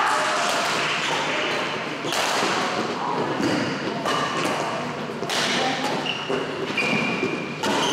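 Doubles badminton rally: rackets hitting the shuttlecock with sharp knocks, and players' court shoes squeaking briefly on the floor.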